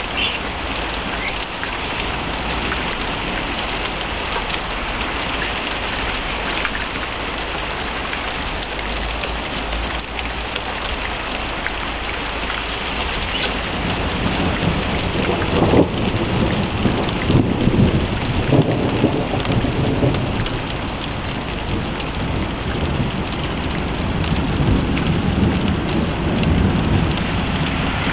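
Heavy rain pouring down with a steady hiss. Thunder rumbles in twice, from about halfway through and again near the end.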